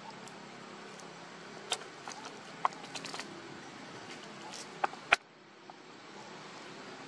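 A macaque tearing and chewing a green leaf: a scattering of sharp clicks and crackles, the loudest a little past five seconds in, over steady background noise.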